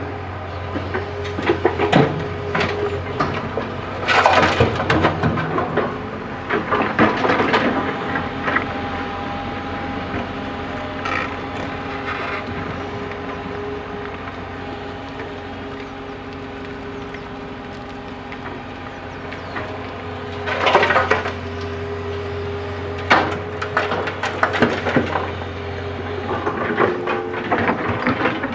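JCB 3DX backhoe loader's diesel engine running steadily, with repeated bursts of rattling and cracking as the bucket works and tips soil.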